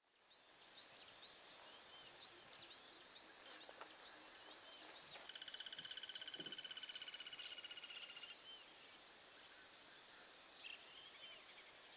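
Faint forest ambience: a steady chorus of insects, fast-pulsing and high-pitched, with scattered short chirps and a trill from about five to eight seconds in.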